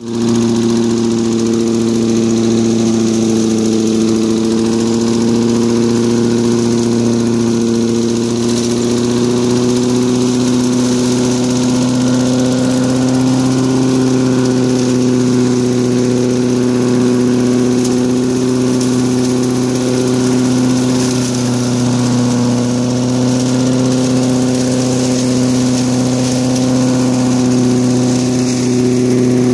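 Gas push lawnmower's small single-cylinder engine running steadily at high speed. It is spinning an impeller fitted in place of the blade, which blows air out of a side chute as a leaf blower.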